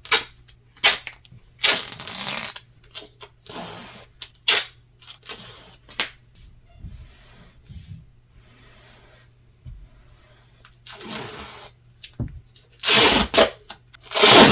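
Duct tape being ripped off the roll and handled: a string of short noisy rips and crackles, with two longer, louder rips near the end.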